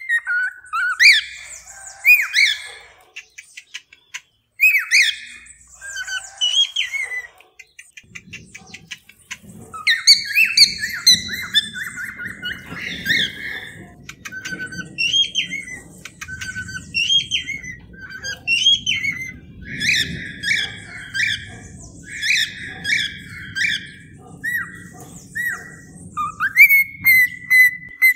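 Cockatiel calls: a steady run of short chirps and warbled whistles in quick phrases, with fast clicking trills a few seconds in. From about eight seconds in, a low rushing noise sits underneath the calls.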